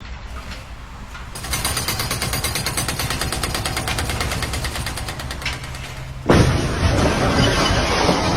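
Machinery making a rapid, even rattling hammer over a low rumble. About six seconds in it cuts abruptly to a louder, steady rushing noise.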